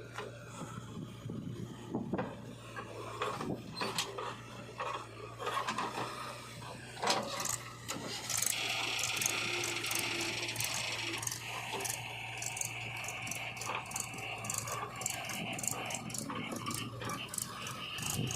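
Heavy diesel machinery running with a steady low hum, under repeated clanks, rattles and scraping. From about eight seconds in, a steady high hiss joins it.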